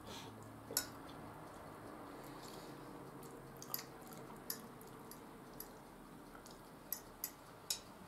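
Quiet eating sounds: a metal fork clicking against a ceramic bowl while fried potatoes are scooped up, with soft chewing. About six short sharp clicks, the loudest about a second in and near the end.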